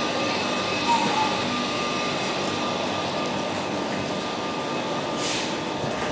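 Steady mechanical hum and whir of a stationary double-deck TGV's ventilation and cooling equipment, with faint steady tones in it. A short hiss comes about five seconds in.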